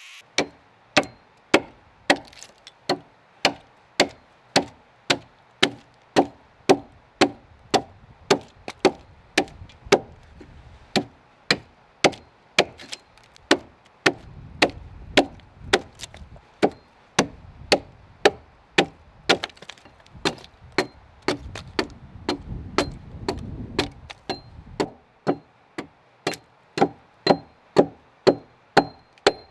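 Hand axe chopping into a timber log, cutting out a notch: steady, even strikes at about two a second, each with the crack of wood chips splitting away.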